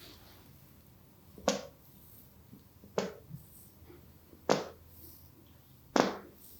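Four sharp smacks or pops from the massage on bare skin, evenly spaced about a second and a half apart, each dying away quickly.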